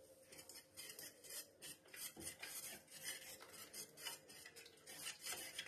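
Wire whisk stirring thick dosa batter in a stainless steel bowl: faint, repeated scraping strokes and light clicks of the wires against the bowl.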